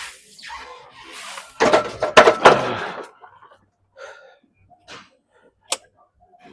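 Hard breathing, then about a second and a half in a loud cluster of metal clanks and thuds from a barbell and weight plates, lasting about a second. A few faint breaths and one sharp click follow near the end.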